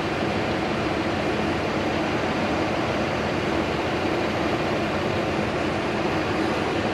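Heat gun blowing steadily while shrinking the heat-shrink on a freshly crimped wiring connector.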